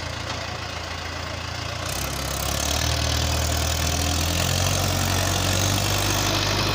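Mahindra tractor's diesel engine working under load as it pulls a trolley through sand. It revs up about two seconds in and runs louder and higher from then on.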